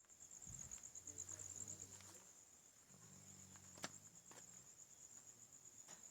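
A dog snoring: two long, low snores, each about a second and a half, over a steady high chirring of crickets. A single sharp click sounds near the end of the second snore.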